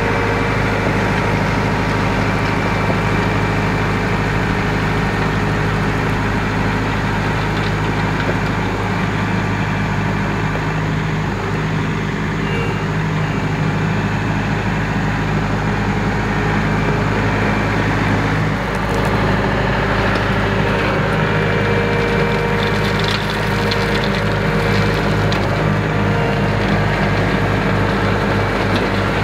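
Compact diesel tractor engine running steadily under load while dragging a land plane, with gravel crunching and scraping under the tyres and the plane's blades.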